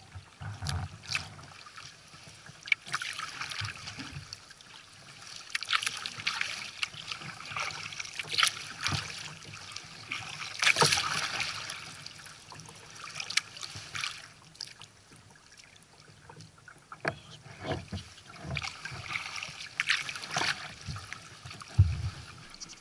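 Kayak paddle strokes through calm sea water: blades dipping and pulling, with irregular splashes and drips running off the blades. A short dull thump near the end.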